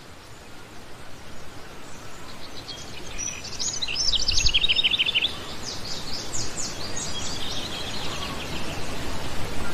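Birds chirping in quick, high trills over a steady background hiss. The chirping starts about three seconds in, is loudest for the next couple of seconds, then goes on more thinly.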